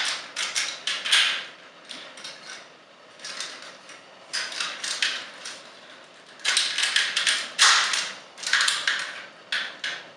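Plastic parts of a Transformers action figure clicking and scraping as they are handled during a transformation, with wing pegs being unplugged and arm joints rotated. The clicks come in irregular clusters, with short quiet gaps between.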